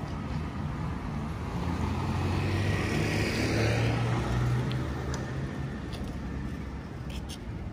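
A motor vehicle passing by: its engine's low hum grows louder to a peak about halfway through, then fades away.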